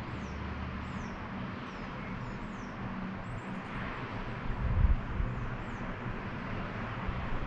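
Outdoor town ambience: a steady low hum of distant traffic, with wind buffeting the microphone in gusts, strongest about halfway through. Short, high, thin descending bird chirps come and go above it.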